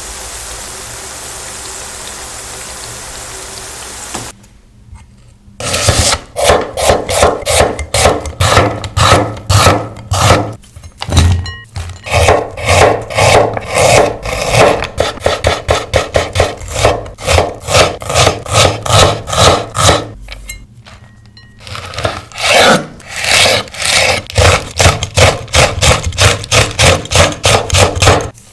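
Kitchen knife slicing onions on a wooden chopping board, in a quick even rhythm of about three strokes a second, with a short break about three-quarters of the way through. It opens with about four seconds of a steady hiss before the slicing starts.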